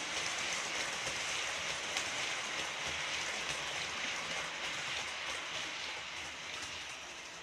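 Model trains running past on the layout's track: a steady hiss of small wheels rolling on rails with occasional light clicks, easing off a little near the end as the trains clear.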